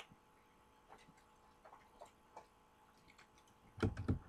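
Faint, scattered clicks and taps of small die-cast toy cars being handled and set down on a hard surface, then a louder double knock near the end.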